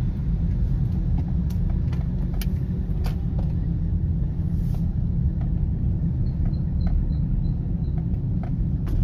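Cabin sound of a Toyota Corolla XLi running on LPG and driving slowly at about 1,000 rpm: a steady low engine and road rumble, with scattered light clicks and rattles.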